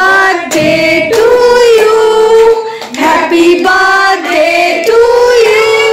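Female voices singing a slow melody with long held notes.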